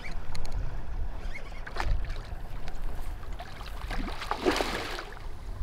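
Wind rumbling on the microphone while a hooked barramundi splashes at the pond surface: a short splash about two seconds in and a bigger one about four and a half seconds in.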